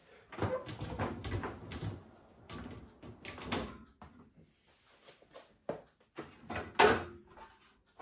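Dishwasher lower basket rolling out on its runners, then clear plastic fridge drawers and door shelves rattling and knocking against the wire rack as they are handled and lifted out. There is one sharp knock near the end.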